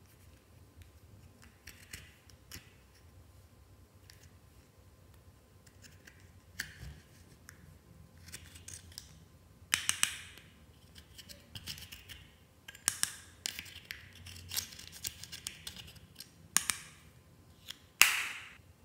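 A metal fork scraping and chipping pressed powder eyeshadow out of its compact pan: light clicks and crumbly scratching that come in spells after a quiet first few seconds. The loudest are a scrape about ten seconds in and a sharp knock near the end.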